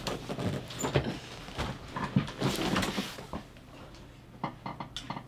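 A person stirring and moving at a desk: a rush of rustling and knocks for about three seconds, then a quick run of light clicks near the end.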